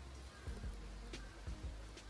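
Quiet background music with a steady low bass and soft low beats.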